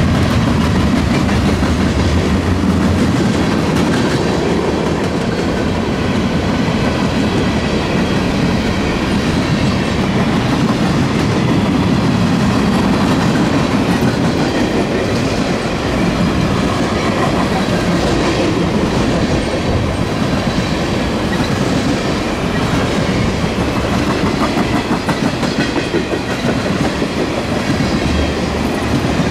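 Manifest freight train's cars rolling steadily past, wheels clicking over the rail joints with a continuous rattle.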